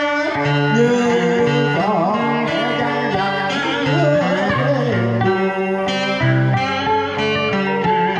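A man singing a Southern Vietnamese đờn ca tài tử song into a microphone, accompanied by a plucked moon lute (đàn kìm) and a scalloped-fret electric guitar, all amplified.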